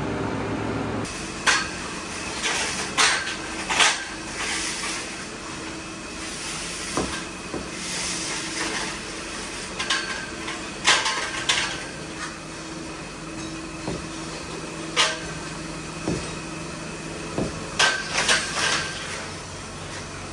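Metal parts clanking and being knocked together at irregular intervals, some strikes ringing briefly, over a steady machine hum.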